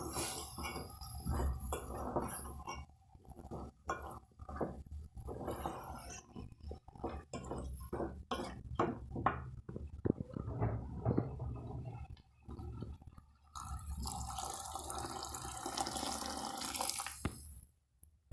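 Kitchen water splashing and dripping, with a run of quick knocks and clinks in the middle and a steadier rush of noise for the last few seconds.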